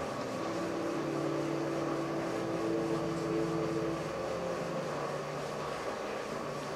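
A steady machine hum with several held tones; one higher tone comes in just after the start and drops out a little past halfway.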